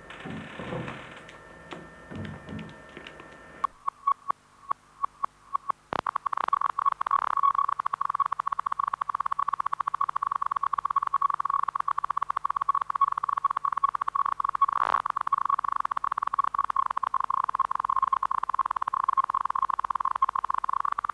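Electronic beep tone: single beeps starting about four seconds in, speeding up, and by about six seconds running together into a continuous rapid pulsing tone that cuts off suddenly at the end. Before it, a few seconds of soft knocks and rustling.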